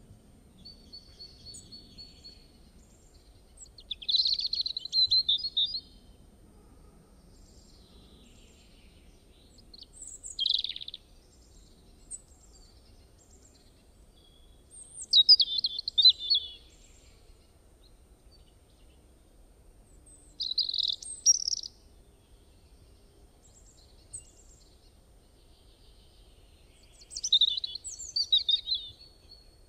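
A songbird singing in short chirping phrases, five bursts of quick high notes a few seconds apart, over a faint steady hum.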